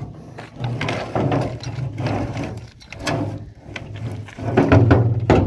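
A rusty metal drum scraping and knocking as it is pulled and shifted about, with irregular scrapes and bumps that are loudest near the end.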